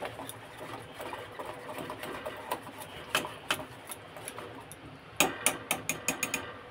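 Wire whisk beating thick semolina (rava) idli batter in a steel bowl, a fast steady rattle that breaks up the lumps. Near the end comes a quick run of sharp metallic taps as the whisk knocks against the bowl.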